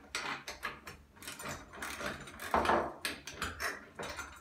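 Half-inch ratchet wrench clicking in short strokes with small metal knocks as a nut and bolt on the buoy's steel bracket are tightened snug.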